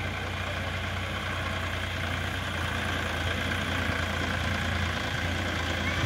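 Diesel farm tractor engine running steadily as it hauls a trailer loaded with soil, growing slowly louder as it approaches.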